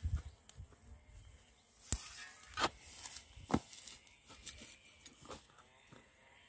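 A spade cutting into grassy, root-filled soil, with a few sharp knocks and scrapes of the blade; the three loudest knocks come under a second apart in the middle.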